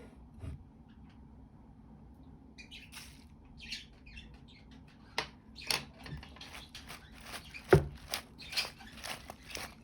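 Kitchen preparation sounds: a run of short scrapes, clicks and squeaks from utensils on dishes, with one sharp knock about three-quarters of the way through.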